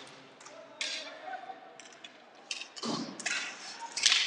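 Sharp, irregular clacks of hockey sticks striking the plastic ball and each other during inline skater hockey play, with a duller thud about three seconds in and the loudest crack near the end.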